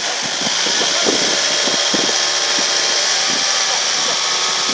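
Volkswagen Transporter van's engine revved hard and held high as the van drives forward out of the mud, with a steady loud hiss over it.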